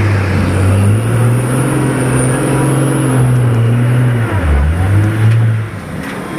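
Heavy diesel engine revving up and held at high revs, dipping briefly about four and a half seconds in, then dropping back near the end, as it strains to pull out of mud.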